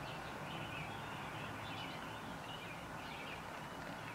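Quiet room tone: a low steady hum with faint, short, high chirps repeating in the background.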